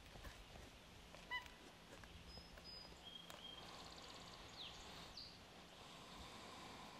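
Faint outdoor quiet with a few short, high bird chirps and whistles, some falling in pitch, and one brief, louder squeak about a second in.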